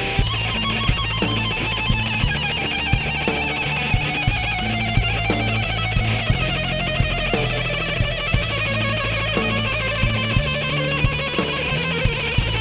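Live rock band playing a slow instrumental passage: a Les Paul-style electric guitar solos in long sustained high notes with a wide, even vibrato, over a bass guitar and drums keeping a steady slow beat.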